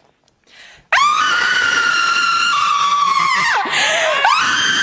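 A woman screaming at full voice: a quick breath in, then a loud, long, high-pitched scream from about a second in, broken briefly near the end by a gasp for air before she screams again.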